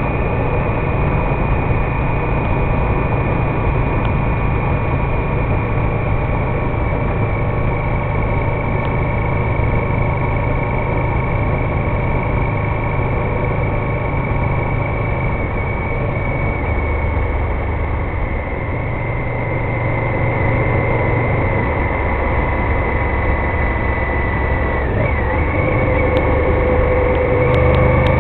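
Honda VTR1000F Firestorm's 996 cc V-twin engine running steadily under way, with wind and road noise over it; near the end the engine note rises as the bike accelerates.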